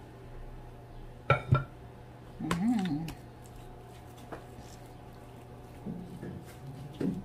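A metal spoon clinking against a ceramic serving dish while mixing a large batch of mashed potatoes, with two sharp clinks a little over a second in.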